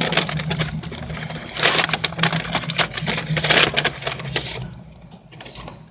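Paper fast-food bag and food packaging rustling and crinkling as the food is taken out, a quick run of crackles that dies away near the end, over a steady low hum.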